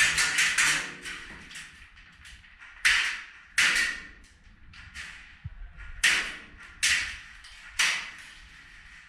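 Airsoft gunfire: a quick string of shots at the start, then five single shots spaced roughly a second apart, each a sharp crack with a short tail.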